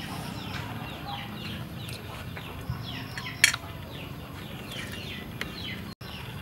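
Chicks or small fowl peeping: many short, high chirps falling in pitch, over and over. One sharp click about three and a half seconds in.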